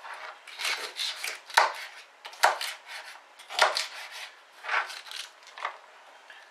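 Kitchen knife chopping cabbage leaves on a plastic chopping board: an uneven series of cuts, roughly one a second, that stops shortly before the end.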